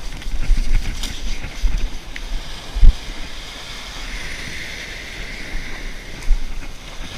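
Ocean surf washing up over wet sand, with wind buffeting the microphone in low rumbles and a heavy thump about three seconds in, another smaller one near the end.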